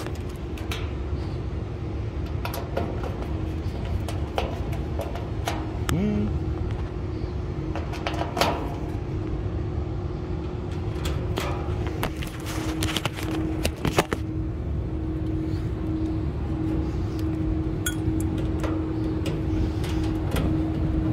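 Steady machinery hum with a low rumble from running rooftop HVAC equipment. Scattered metallic clicks and clinks of a nut driver against the fan guard and mounting hardware, loudest in a short clatter about two-thirds of the way through.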